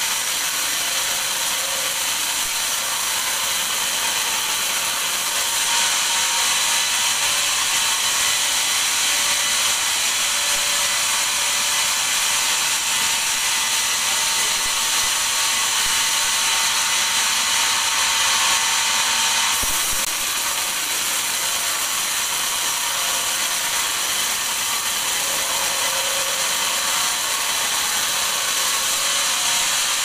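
Sawmill band saw ripping a teak log lengthwise: a steady high hiss of the blade cutting through the wood, with a faint whine underneath. It gets louder about five seconds in and eases back at about twenty seconds.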